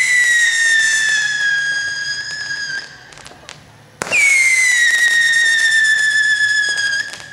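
Two whistling rockets. The first is already whistling at the start. The second launches about four seconds in with a sharp crack, then gives a loud whistle that slides down in pitch for about three seconds.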